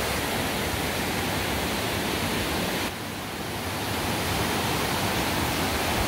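Mountain stream rushing over rocks in a steady wash of water, dipping slightly about three seconds in and then slowly building again.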